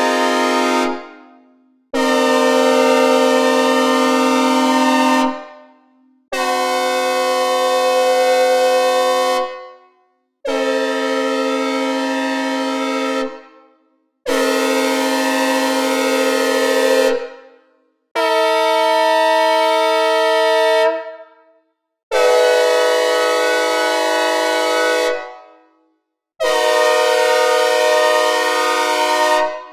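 Synthesized imitations of American locomotive air horns, played one after another with reverb. Each is a multi-note chord sounded steadily for about three seconds, then fades away. The last of an earlier horn dies out about a second in, and seven more follow with short gaps between them.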